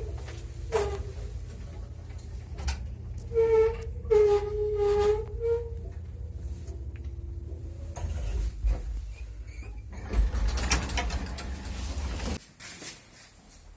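1979 MLZ passenger lift running, its guide shoes squeaking on the guide rails in pitched squeals a few seconds in, with knocks and clatter over a steady low hum. The hum cuts off shortly before the end.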